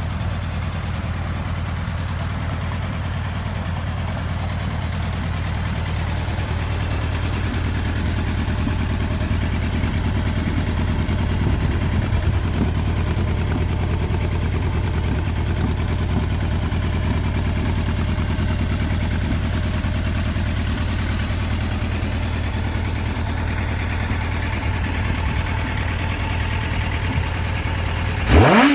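Kawasaki ZX1100 inline-four engine idling steadily. Right at the end a quick blip of the throttle sends the revs sharply up.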